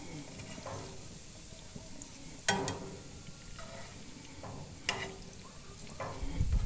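Slotted spatula stirring and scraping macaroni in a frying pan, over a faint sizzle of butter. A few sharper scrapes or knocks on the pan, the loudest about two and a half seconds in and another near five seconds.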